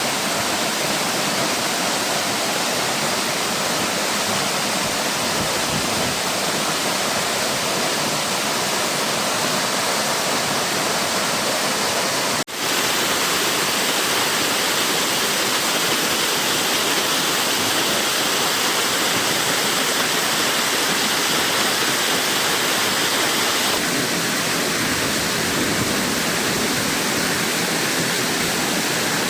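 Waterfall rushing: a loud, steady noise of falling water, broken by a brief dip about twelve seconds in.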